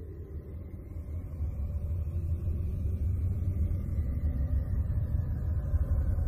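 Low, rumbling ambient space drone swelling steadily louder, with a faint high tone held above it: an electronic 'space sound' track meant as the sound of a moon of Uranus.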